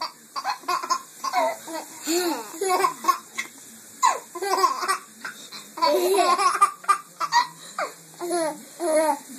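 A baby laughing hard in many short, repeated peals of giggles.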